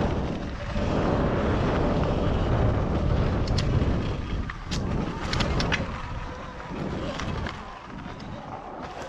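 Electric dirt bike riding a gravel trail: wind noise on the microphone over tyre and chassis rattle, with a few sharp clicks from about three and a half to six seconds in. It quietens near the end as the bike slows.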